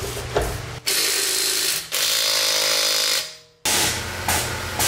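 Cordless power tool running in several short runs that stop and start abruptly, about once a second, as bolts on the car's front wheel and suspension are worked.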